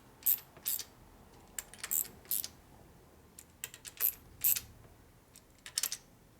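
Light metallic clicks and clinks of a hand tool on small hex bolts as they are snugged down just past finger tight on a thin cover plate, in irregular groups of two or three a few tenths of a second apart.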